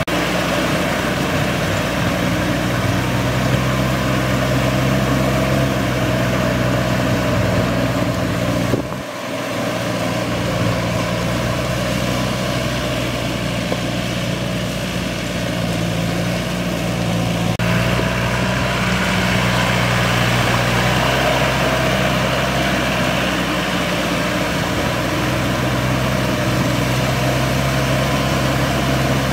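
Yanmar YM357A tractor's diesel engine running steadily as the tractor works through a flooded rice paddy, briefly dropping in level about nine seconds in.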